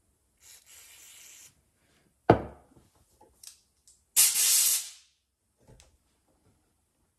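Brake cleaner aerosol hissing for about a second as a chainsaw carburetor's pump cover is cleaned, then a sharp knock as the can is set down on the wooden bench, then a short, louder blast of compressed air from an air gun.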